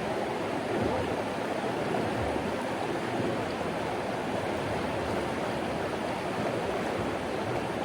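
Creek water rushing and babbling in a steady, even wash.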